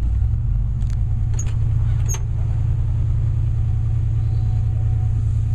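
A 1965 Ford Falcon's 289 V8 running with a steady low rumble, heard from inside the car. There are a few faint squeaks and clicks in the first two seconds.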